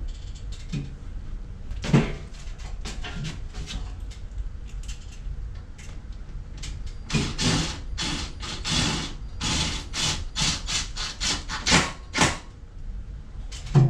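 Tapcon screws being driven into the concrete wall to fasten a tankless water heater, heard as a run of short, sharp scraping bursts about two a second in the second half. There is a single knock about two seconds in.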